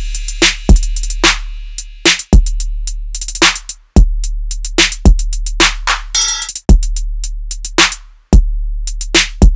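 Background music: a drum-machine beat with sharp snare and hi-hat hits and deep bass-drum notes that ring on between beats.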